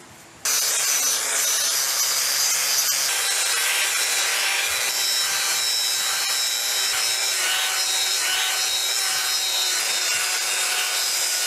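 Handheld DeWalt power sander with a sanding disc running against a debarked log post, a steady high whine over the scratch of abrasive on wood. It starts suddenly about half a second in.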